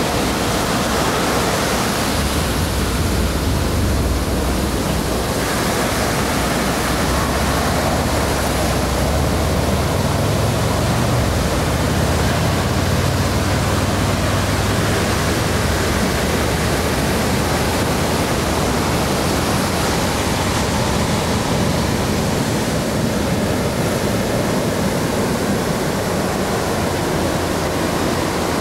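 Ocean surf washing onto a sandy beach: a steady, even rush of breaking waves and wash, with a low rumble swelling and fading through the first half.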